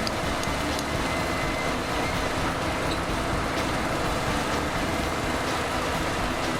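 Construction machinery running steadily, a continuous engine rumble with hiss that holds at one level throughout.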